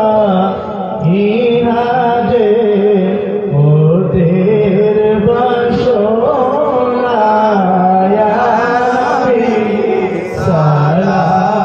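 Men's voices singing a milad qiyam, an Arabic devotional salutation to the Prophet, as a slow melodic chant.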